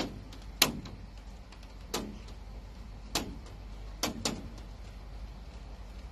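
Half a dozen sharp knocks at uneven intervals, two of them in quick pairs, over a low steady rumble.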